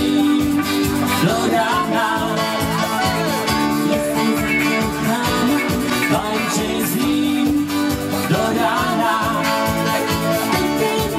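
Dance music with a singing voice and a steady beat.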